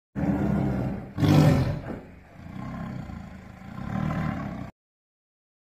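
Tiger growling and roaring: a deep growl, a louder roar about a second in, then lower growls that cut off suddenly near the end.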